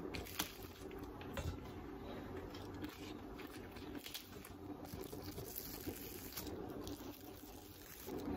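Lettuce leaves and plastic cling film rustling and crinkling as hands press the leaves onto a slice of bread, with a few soft taps.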